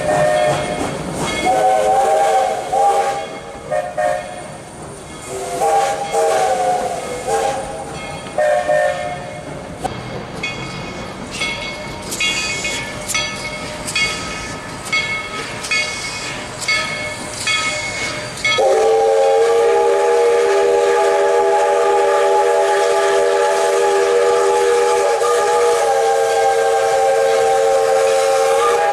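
Narrow-gauge Baldwin steam locomotive sounding its chime whistle in several short blasts, then its bell ringing at about one and a half strokes a second. The whistle then sounds one long blast held for about ten seconds to the end.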